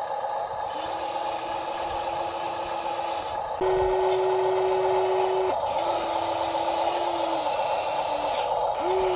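Small electric motors of a radio-controlled model excavator whining over a steady whir. The whine comes in several runs of about two seconds, each at a slightly different pitch, and rises then falls near the end.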